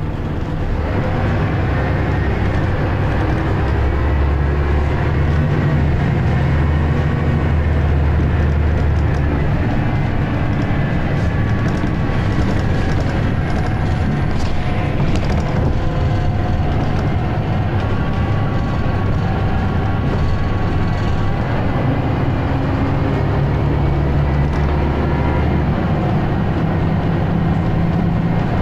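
Scania L94UB single-deck bus's diesel engine and ZF automatic gearbox, heard from inside the passenger saloon while driving, with road and body rattle. The engine note swells twice, early on and again near the end, as it pulls under power.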